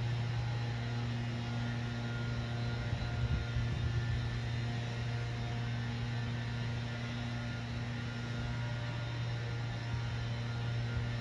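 A steady low hum with fainter steady tones above it, unchanging throughout.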